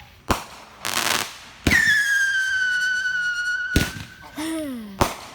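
Multi-shot consumer firework going off: four sharp bangs, with a whistling shot after the second bang that falls a little in pitch and lasts about two seconds. A brief crackling hiss comes about a second in.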